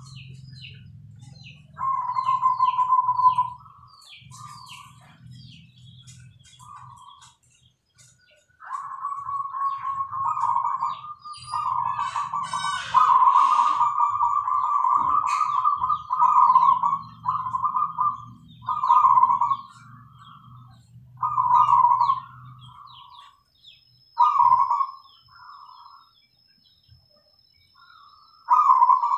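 Caged zebra doves (perkutut) cooing: repeated rolling coo phrases that come in bouts, running together in the middle, with short high chirps of small birds between them.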